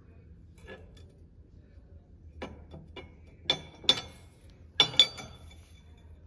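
Light metallic clinks and taps as a steel straight edge is set down and shifted across the face of a clutch intermediate plate, checking it for flatness. About eight short clicks, the loudest bunched in the second half.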